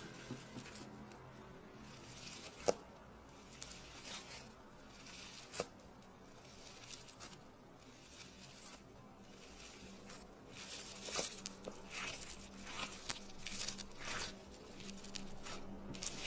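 Slime being stretched and squished by hand: sticky crackling and small pops, with a couple of sharper clicks early on and busier crackling in the second half.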